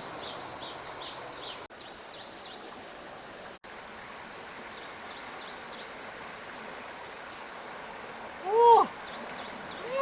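Steady outdoor background noise with quick high chirps in the first couple of seconds, cutting out briefly twice. About eight and a half seconds in comes a loud, short call that rises and falls in pitch.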